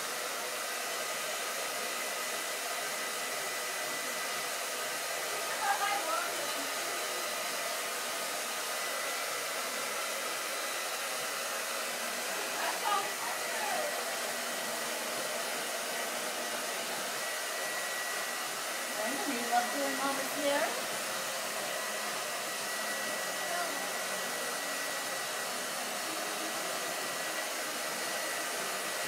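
A steady whirring blower, like a hair dryer or fan, runs without change. A toddler's voice gives short high squeals over it about 6, 13 and 20 seconds in.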